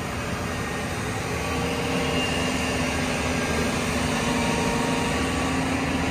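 An engine running steadily with a dense low rumble, its tone rising slightly about a second and a half in.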